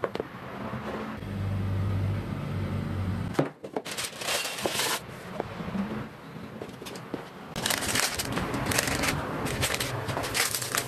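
Dry yufka pastry sheets crinkling and rustling as a knife cuts through the rolled börek and the pieces are pressed into a plastic box. There is a low steady hum for about two seconds near the start and a single knock a little over three seconds in.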